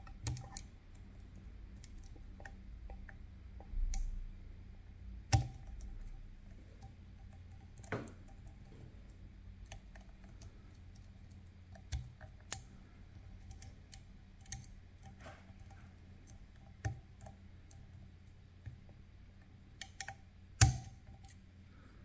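Lock pick and tension tool working inside a Picard Vigie lock while it is being picked: sharp clicks and taps at irregular intervals, a few seconds apart.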